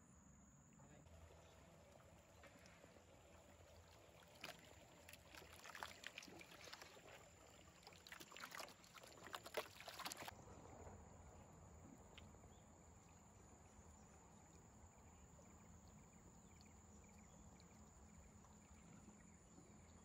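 Faint river ambience around a drifting bamboo raft, with a few seconds of soft splashing and trickling of water against the bamboo poles in the middle, the loudest part.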